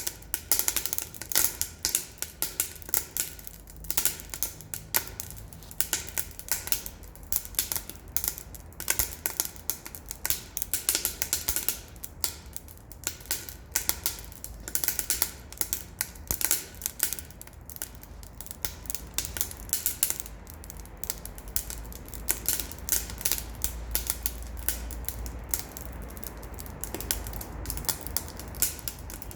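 Wood fire crackling and popping hard in a Solo Stove, burning scrap pallet and crate wood. Many sharp, irregular snaps come several times a second over a low rumble of the flames.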